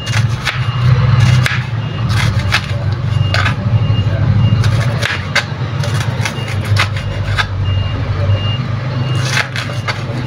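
Kitchen knife slicing a red onion on a plastic cutting board, in irregular sharp chops about one or two a second. Under it runs a steady low hum, and a faint high beep repeats about twice a second.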